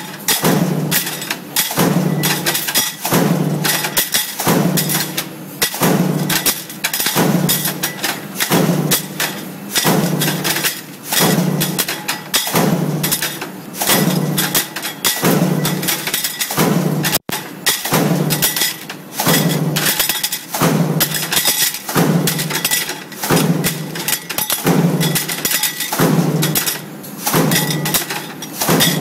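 Stamping press running continuously, cycling about once a second, each stroke a heavy metal impact followed by clattering of the tooling and parts.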